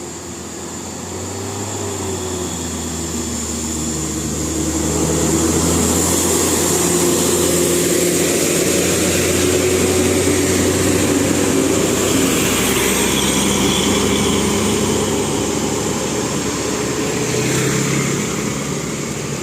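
Bus engine running steadily under a high hiss, growing louder over the first five seconds and easing off slightly near the end.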